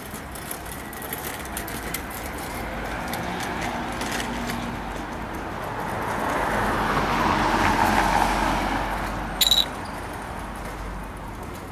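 A car passing by: its road noise swells to a peak about eight seconds in and then fades. Just after the peak comes a short, sharp, high squeak.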